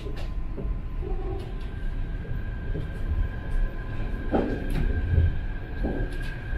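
Chiba Urban Monorail suspended car running along its track, heard from inside the front of the car: a steady low rumble with two faint steady high tones and occasional knocks and rattles, the strongest about four seconds in.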